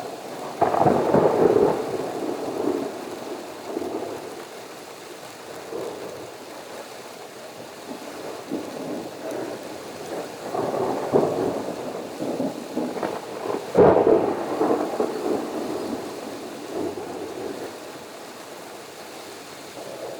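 Thunder rumbling over steady rain, in several swells; about two-thirds of the way through a sharp thunderclap is the loudest sound, rolling off into a long rumble.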